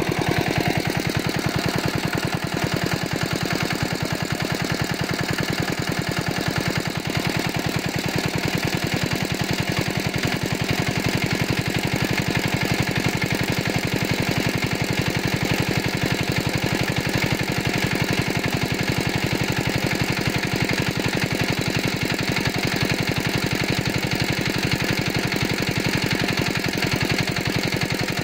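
A small engine running steadily, its firing an even, fast beat that does not change in speed or loudness.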